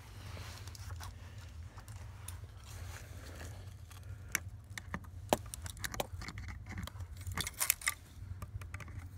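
Small hand tool clicking and scraping against a valve while working a sideways-stuck valve out of its carriage. Scattered sharp clicks come more often from about four seconds in, with a quick cluster near the end. A steady low hum runs underneath.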